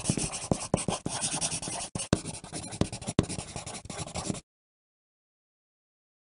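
Pencil writing on paper in quick, scratchy strokes, cutting off suddenly about four seconds in.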